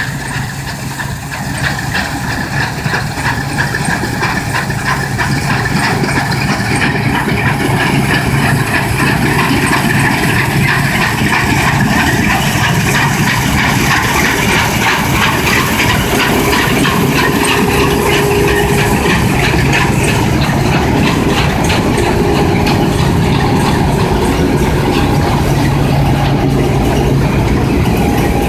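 Bizon Z056 combine harvester with a Renault engine, running steadily under load while harvesting wheat: an even engine drone with the busy clatter of the threshing machinery over it. It grows louder over the first several seconds as the combine comes close, then holds steady.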